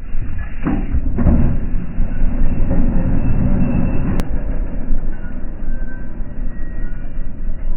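ATV engine running on the move, a continuous low noisy rumble that swells about a second in, with one sharp click about four seconds in.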